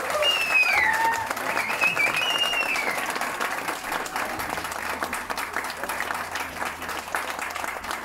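Audience applauding, loudest at the start and gradually dying down, with a few raised voices calling out over the clapping in the first three seconds.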